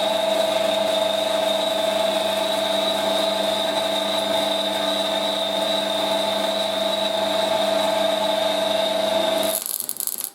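Electric welder arc running in one continuous steady buzz for about nine seconds, then cutting off abruptly, with a short thin hiss after. The even sound is the mark of a good, steady weld ("sounded nice").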